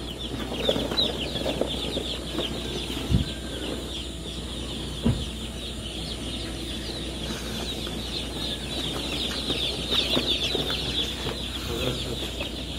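A mass of FFG-breed chicks peeping non-stop in their cardboard chick boxes, a dense chorus of short high cheeps. Two dull knocks come about three and five seconds in.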